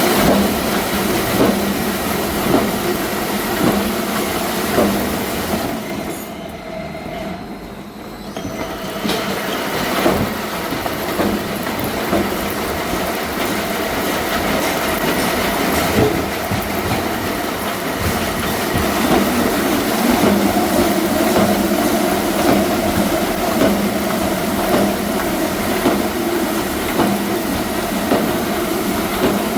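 Rotary veneer peeling lathe running, a loud steady mechanical clatter and squeal with scattered knocks. It briefly drops quieter and duller about six to eight seconds in, then picks up again.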